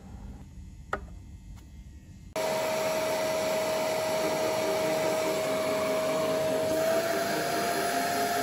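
Vacuum cleaner motor running steadily, sucking air through a homemade vacuum-forming box to pull a softened plastic sheet down over a clay master. It starts suddenly a little over two seconds in, and its steady whine rises slightly in pitch near the end.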